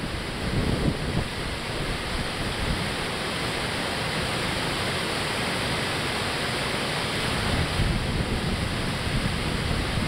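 Water pouring over a low concrete river dam, a steady rushing noise. Low wind rumble on the microphone rises briefly about a second in and again near the end.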